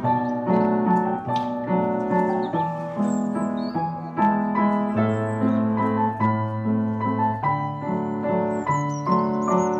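Background music: a slow instrumental piece led by piano over a held bass line, with a few faint high falling chirps near the end.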